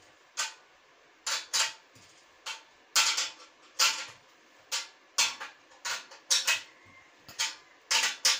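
Open-end steel spanner clinking against a nut on the steel leg brace of a sewing machine stand as the nut is tightened. It gives sharp metallic clicks at an uneven pace, about two a second, as the spanner is turned and repositioned.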